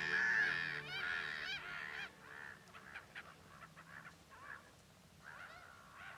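Gulls calling, a string of short yelping calls that grow fainter toward the end.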